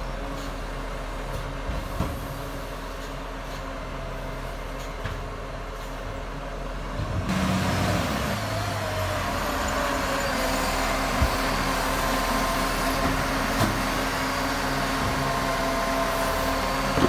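Iveco Acco garbage truck's Cursor 9 diesel engine running as the truck moves along the street. About seven seconds in it gets louder, and a wavering hydraulic whine joins as the side-loader arm lifts a wheelie bin.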